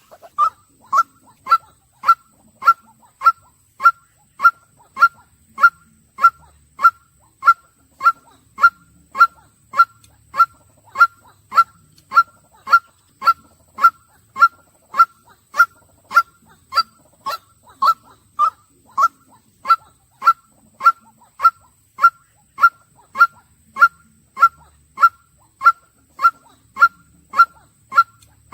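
White-breasted waterhen calling one short note over and over, loud and monotonous, just under two notes a second at a very even pace.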